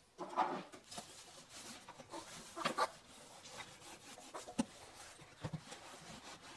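Quiet wiping of a painted wooden cabinet shelf with a knitted cloth: a few separate rubbing strokes with light knocks in between.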